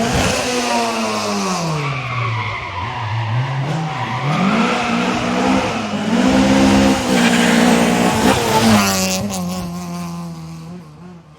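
Rally car engine at high revs: the pitch drops over the first few seconds as it slows, then climbs and falls again through several gear changes as it accelerates, with tyre noise from sliding on the stage. The sound fades near the end.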